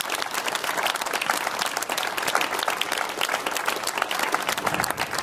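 Audience applauding: many hands clapping in a dense, steady stream of claps.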